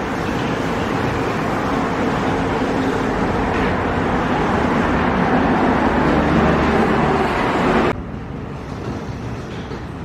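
Yui Rail monorail train standing at the station platform with its equipment running: a loud, steady hum and rush that grows slightly louder, then cuts off suddenly about eight seconds in, leaving a quieter open-air background of distant traffic.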